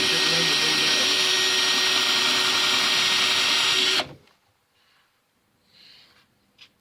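A small electric power tool running steadily at one speed, switched off about four seconds in, followed by faint handling sounds.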